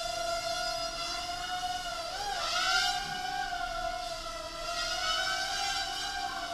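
Micro quadcopter with a Hubsan H107C+ frame and a JJRC H6C board hovering: the high, steady whine of its small motors and propellers, wavering in pitch and briefly dipping about two seconds in before steadying again.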